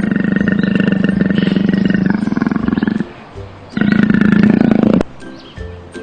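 Leopard roaring: a long, loud, rasping roar lasting about three seconds, then after a short pause a second, shorter roar that cuts off suddenly.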